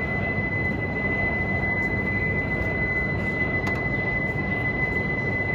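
Shinkansen platform departure signal: a single steady, high electronic tone held without a break, over the low hum of the station and the waiting E5 series train.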